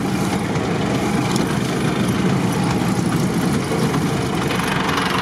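Off-road 4x4's engine running steadily, heard from inside the cab.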